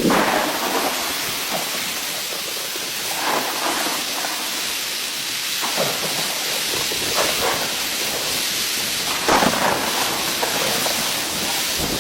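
Heavy rain falling steadily, a constant hiss with brief louder surges every second or two.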